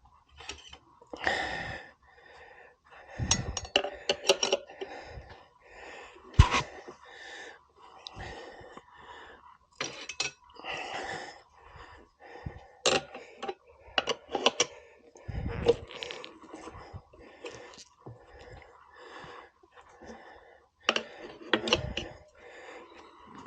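Hands-on work on a motorcycle wheel and tire: irregular knocks, clinks and scuffing noises come at uneven intervals, with a few sharper strikes.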